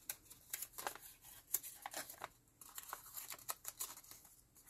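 Paper rustling and crinkling as envelopes and dyed papers are handled, a run of small, quiet crackles and clicks.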